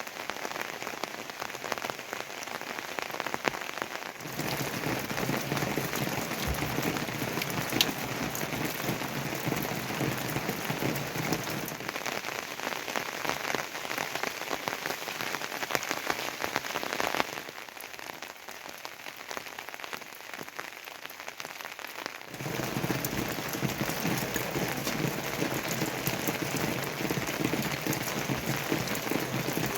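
Heavy rain falling, a dense steady patter of drops on surfaces. Its loudness changes abruptly a few times: fuller from about four seconds in, thinner for a stretch from about seventeen seconds, then fuller again from about twenty-two seconds.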